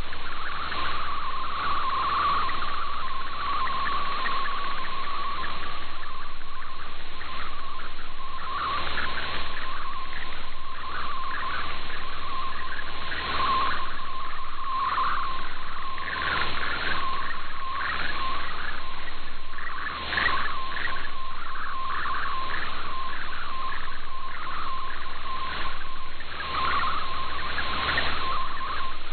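Shortwave digital-mode picture transmission, an MFSK image being sent: a busy, warbling, chirping tone that flickers rapidly in pitch over a bed of radio band noise.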